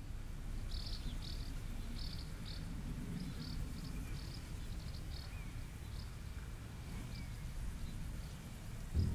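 Countryside ambience: a steady low rumble with short, high chirps repeating irregularly throughout.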